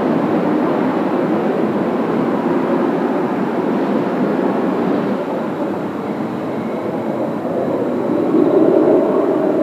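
Kawasaki T-4 jet trainers' turbofan engines running on the ground before takeoff, a steady rushing noise with a faint high whine coming in about halfway and swelling louder near the end.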